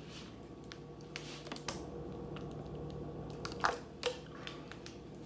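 Light handling noise: scattered small clicks and taps, with two louder short sounds near four seconds in, over a steady low hum.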